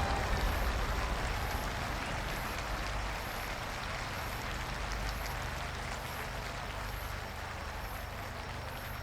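The tail of a fireworks barrage: a low rumble of echoes dying away, with a faint crackling patter, fading steadily.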